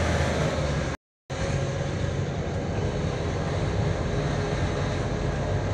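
Car driving, heard from inside the cabin: steady engine and road rumble. The sound drops out completely for a moment about a second in.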